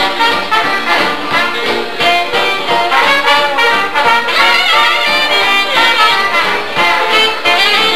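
Small jazz band playing live, a trombone carrying the melody over a steady beat.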